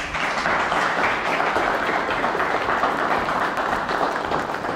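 A small group of people applauding, a dense steady patter of hand claps.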